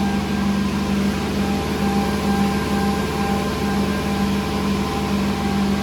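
Cehisa EP-9 Rapid edge banding machine running, a steady machine hum with a constant whine.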